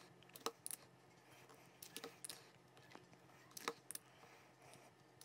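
Faint, irregular plastic clicks, about seven of them, from a Moyu YS3 M speed cube being handled and pressed on its top face just after its core tension screw has been adjusted.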